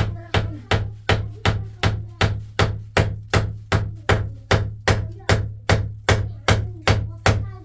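Hammering on wood: about twenty hard, evenly spaced blows, roughly two and a half a second, each with a deep thud, stopping abruptly near the end.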